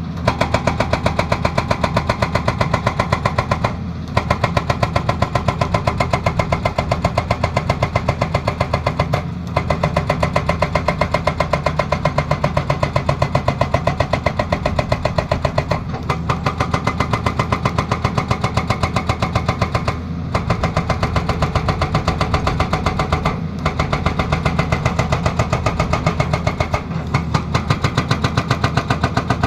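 Excavator-mounted hydraulic breaker hammering in a rapid, even train of blows, with the excavator's diesel engine running underneath. The hammering stops briefly every few seconds and starts again.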